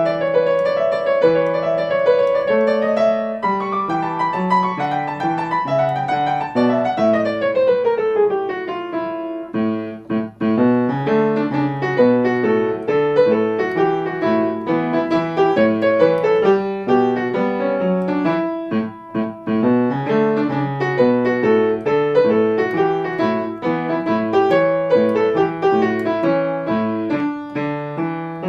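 Background piano music, a steady run of notes with a descending line about six seconds in.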